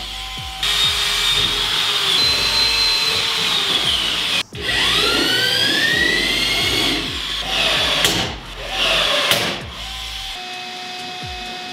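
Electric drills boring into a thin metal panel: a steady whir, then the motor spinning up again with a rising whine, then a few short bursts of drilling. A quieter steady hum follows near the end.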